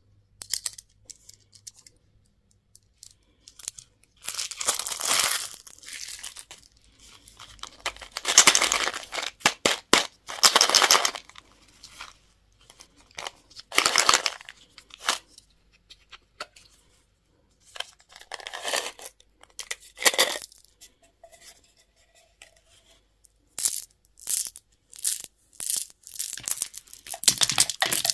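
Candy packaging torn open and crinkled by hand, in repeated bursts of tearing a second or so long with small clicks and rustles between.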